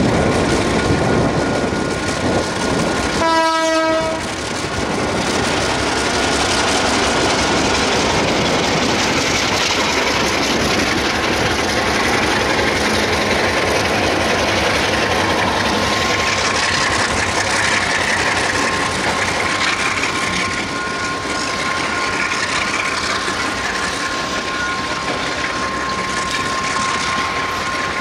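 Freight train rolling past, a continuous rumble and rattle of the wagons on the track. One short horn blast about three seconds in, and a thin steady high whine runs underneath.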